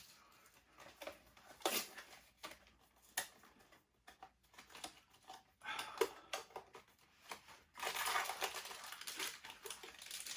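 Cardboard and foil packaging of a mystery-mini figure being handled and opened: scattered clicks and taps, then a stretch of crinkling and rustling near the end.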